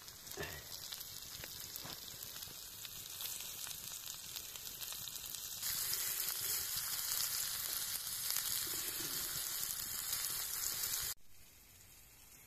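Food sizzling in a hot pan, a steady hiss with fine crackling spatter. It gets louder about halfway through and cuts off abruptly near the end.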